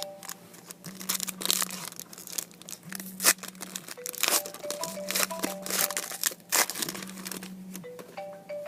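Foil trading-card pack wrappers crinkling and tearing as packs are opened and cards handled, in irregular sharp crackles, the loudest about three seconds in. Background music with a looping melody plays throughout.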